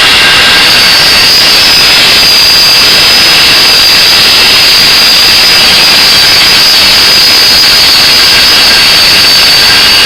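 Angle grinder running under load with a steady high whine, grinding the edge of a leaf-spring steel knife blade.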